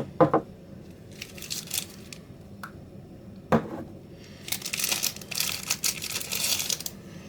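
Packaging crinkling and rustling as a small gift bag of products is opened and its contents pulled out, with a few sharp knocks of items being handled near the start and about halfway through.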